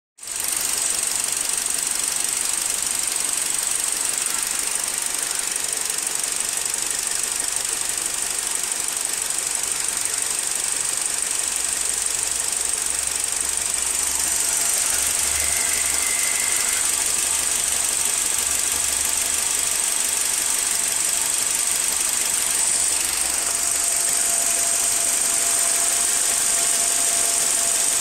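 BMW 116i's 1.6-litre four-cylinder petrol engine running steadily at a constant speed, with a strong high-pitched hiss over its clatter.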